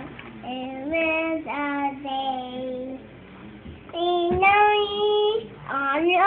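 A young child singing in long held notes, the pitch climbing higher about four seconds in.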